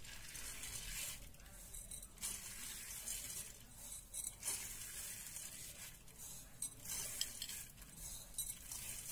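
Raw rice grains scattered by hand over sliced potatoes in a glass baking dish: a faint, uneven hissing patter with a few light clicks.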